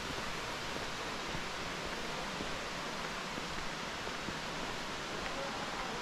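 Steady rushing water: an even, unchanging hiss.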